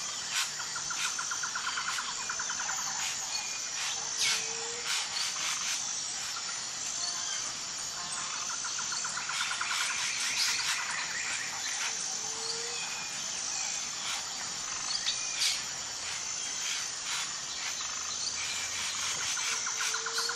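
Outdoor nature ambience of birds chirping and tweeting over steady insect calls. A short low rising note comes back about every eight seconds.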